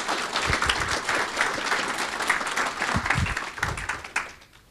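Audience applauding, fading out about four seconds in, with a few dull low thumps underneath.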